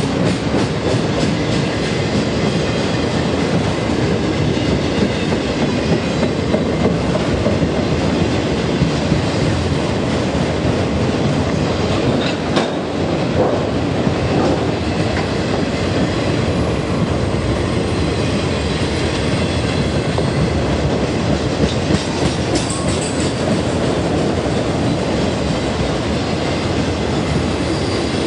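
Train cars rolling steadily past, their wheels clicking over the rail joints.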